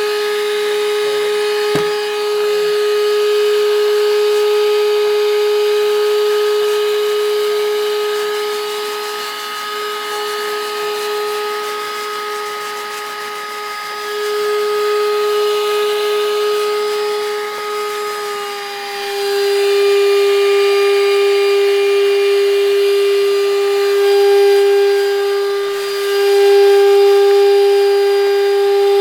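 Bissell SpotBot ProHeat spot cleaner's suction motor running with a steady high whine while the manual hose cleans a stain. There is a click about two seconds in, and about two-thirds of the way through the whine drops slightly in pitch and gets louder.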